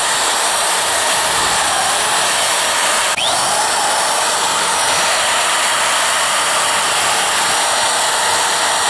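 Corded electric drill with a sander attachment running steadily as it sands the rough, hollowed-out inside of a dried coastal agave stalk. There is one brief break in the sound about three seconds in.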